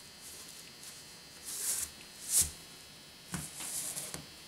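Heavy sewing cord pulled through a tree-stand seat's fabric with a large hand needle: three or four short swishes, the loudest and sharpest about two and a half seconds in.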